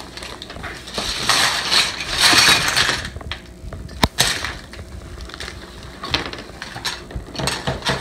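Plastic bag and cardboard packaging rustling and crinkling, loudest about two to three seconds in, then small plastic building bricks clicking and clattering onto a plastic tray, with one sharp click about four seconds in.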